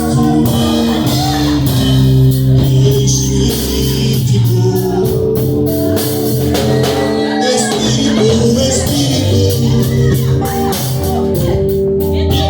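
A band playing a gospel song, with guitar, bass and drum kit.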